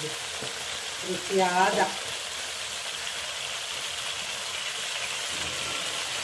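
Muru fish coated in masala and rice flour, shallow-frying in oil in a nonstick pan: a steady sizzle.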